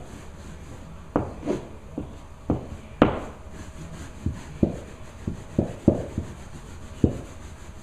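About a dozen irregular dull knocks and bumps, with some rubbing, as things are handled against a wooden stair during carpet cleaning; the sharpest knock comes about three seconds in.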